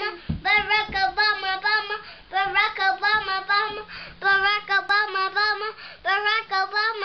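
A young girl singing in a high voice, quick syllables in short phrases with brief breaks for breath.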